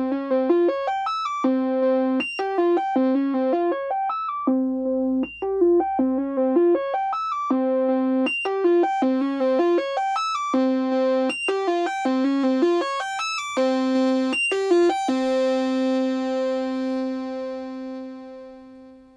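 Moog Sub 37 analog synthesizer, sequenced by a Korg SQ-1 step sequencer over CV and gate, playing a fast repeating pattern of single notes. The tone grows brighter past the middle as the synth's knobs are turned. It then settles on one held note that fades away.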